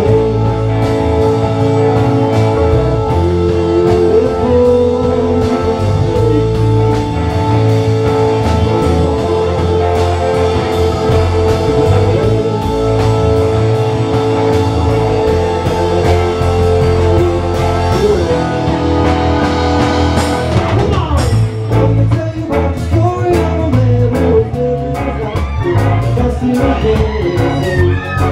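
Live band music: drum kit, keyboards and electric guitar playing a funk-rock jam, with held keyboard chords through most of it and a voice singing near the end.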